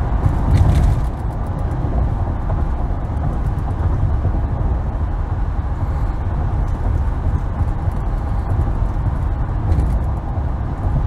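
Steady road and engine noise of a moving car, heard from inside the cabin, with a brief louder swell about half a second in.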